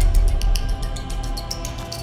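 Soundtrack music with a fast, steady drum beat over sustained chords, its heavy bass fading during the first second.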